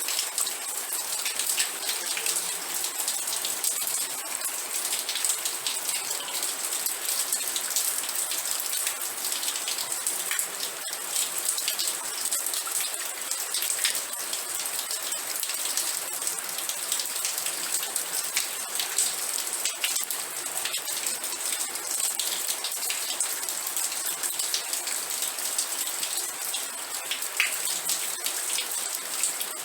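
Steady rain falling, a dense hiss with many fine drop ticks and no change in intensity.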